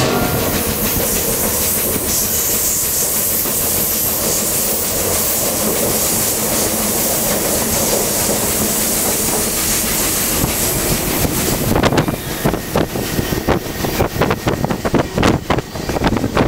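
Rocky Mountaineer passenger train running along the track with a steady rush of wind and rolling noise. From about twelve seconds in there is a rapid, irregular clatter of the wheels on the rails.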